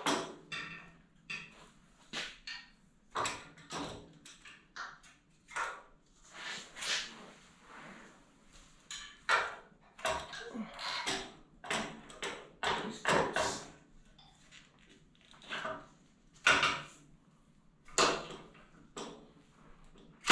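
Steering rack knocking and scraping against the steel truck frame as it is slid through the front crossmember and worked into place: a string of irregular clunks with short scrapes between them.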